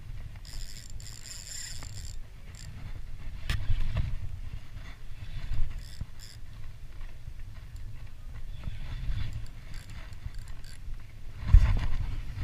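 Spinning reel and rod being handled: scattered clicks and scrapes with a brief high whirr about a second in, and a louder knock near the end, over a steady low rumble.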